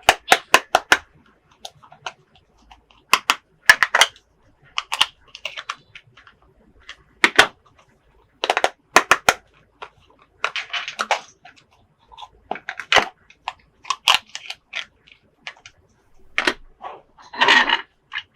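Irregular sharp clicks and clacks of hard plastic toy pieces being handled and set down, with a longer rattling burst near the end.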